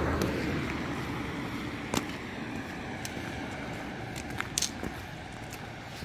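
A road vehicle passing and fading away, its tyre and engine noise dying down with a slightly falling pitch. A few light clicks of footsteps on gravel.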